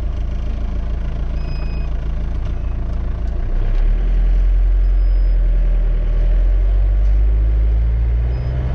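Camper van's engine running, heard from inside the driver's cab, getting louder about four seconds in as the van moves off.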